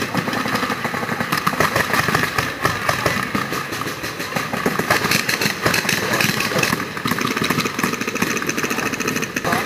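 Several paintball markers firing in rapid, overlapping strings, a continuous dense rattle of pops.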